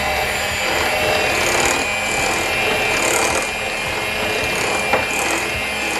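Electric hand mixer running steadily on low speed, its beaters working confectioners' sugar into creamed butter in a glass bowl to make buttercream frosting.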